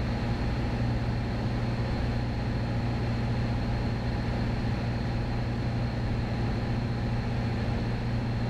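Piper PA-28 Cherokee Warrior's four-cylinder Lycoming engine and fixed-pitch propeller droning steadily in flight, heard from inside the cockpit.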